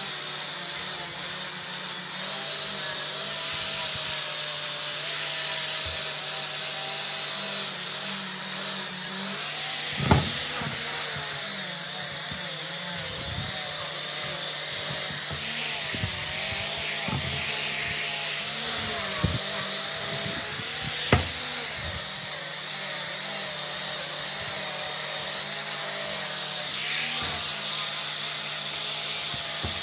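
Electric angle grinder with a red abrasive disc running and grinding rust off a steel vise body, a steady whine whose pitch wavers as the disc is pressed on and eased off. A couple of sharp knocks come from the part and disc, about a third and two-thirds of the way through.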